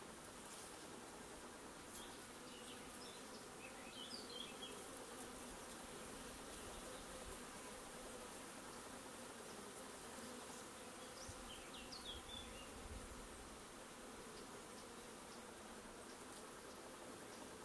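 Faint, steady hum of a honeybee colony in an open hive, the bees crowding the frames. Two short clusters of high chirps come through, about four and twelve seconds in.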